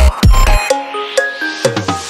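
Electronic background music with a heavy bass beat. About half a second in, the beat drops out for a rising sweep and a few held synth notes, and the bass comes back near the end.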